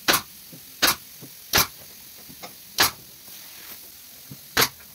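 Pneumatic brad nailer firing five times at irregular intervals, driving brads into the wooden runner strips of an MDF sled. Each shot is a sharp crack with a brief puff of exhaust air, over a steady faint hiss of air.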